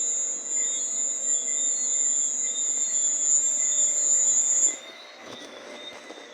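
Cricket calling with a loud, steady, high-pitched trill that cuts off suddenly about three-quarters of the way through; fainter insect calls carry on underneath.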